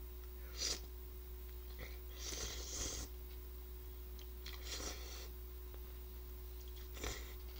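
Slurping instant rice noodles: four short hissy slurps, the longest about two seconds in and another about five seconds in.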